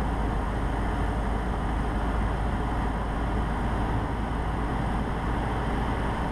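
Cessna 150's Continental O-200 four-cylinder engine and propeller running steadily with plenty of power set, along with airflow noise, heard inside the small cockpit.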